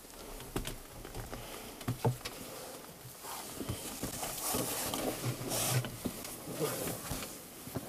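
Someone climbing down a wooden cellar ladder: irregular knocks and thumps of feet and hands on the wooden rungs, with clothing rustling as they go.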